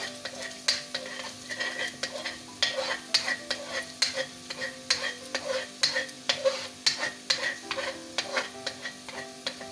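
Chopped garlic sizzling in a little oil in a wok as it is lightly sautéed, with a spatula stirring and scraping across the pan about two or three times a second.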